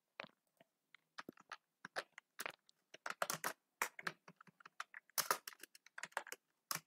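Typing on a computer keyboard: irregular key clicks, a few at first, then quicker runs of keystrokes from about three seconds in.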